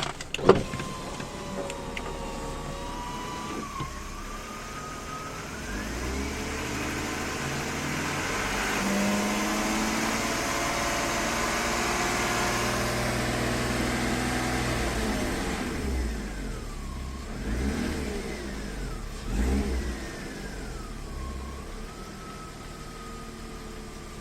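BMW 325is straight-six engine revved up, held, then dropped and blipped twice, with a high whine that rises and falls with engine speed: the whine of a faulty remanufactured alternator. A sharp knock about half a second in.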